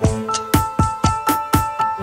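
Background music: a steady beat of about four strokes a second under held keyboard-like chords.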